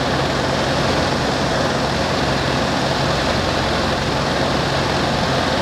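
Jabiru 430 light aircraft's engine running steadily, throttled back for landing, with airflow noise over the airframe, heard inside the cockpit.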